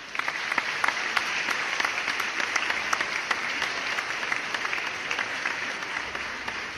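Audience applause: many people clapping together in a dense, steady patter that starts suddenly and eases off a little toward the end.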